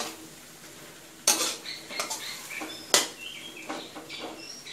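Metal spatula scraping and clanking against a steel wok while stir-frying long beans and pork belly in curry paste, with sharp scrapes at the start, after about a second, and about three seconds in, and lighter ones between. Birds chirp in the background from about halfway.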